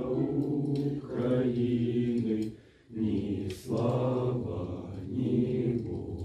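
Several male voices singing a slow song together in long held notes, with a brief break between phrases about two and a half seconds in.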